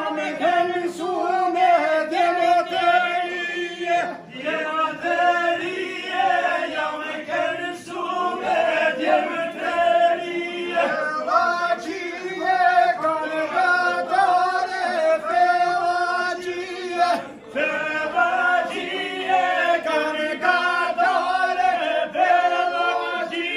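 Men's voices singing together in a northern Albanian highland folk song, in long held phrases with brief breaks between them.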